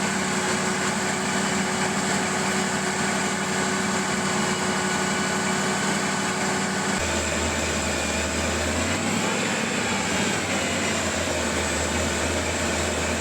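Old carbureted truck engine idling, hot, with a vacuum leak at an intake-manifold port while starter fluid is sprayed at the vacuum connections. About halfway through the sound drops abruptly to a deeper note, and a couple of seconds later the pitch rises and falls briefly.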